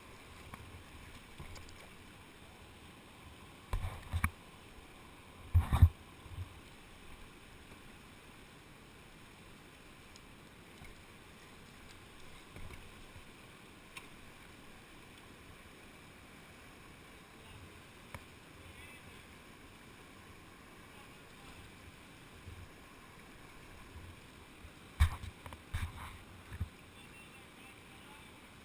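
A whitewater kayak being paddled through shallow water beside a rocky bank: a few sharp knocks and splashes of the paddle, the loudest about six seconds in and another cluster near the end, over a faint steady rush of the creek.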